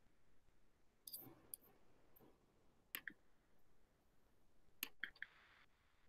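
Near silence broken by a handful of faint, sharp clicks a second or two apart: computer mouse clicks.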